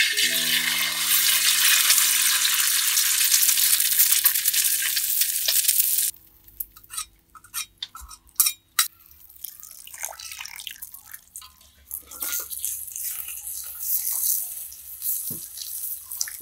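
Duck egg dropped into hot oil in a wok, sizzling loudly and cutting off about six seconds in. After it come scattered light clicks and knocks, and near the end a softer hiss.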